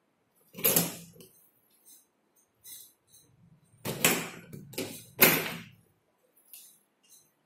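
A wooden door being handled at close range: a loud knock about half a second in, then three more knocks and rattles in quick succession around four to five and a half seconds in.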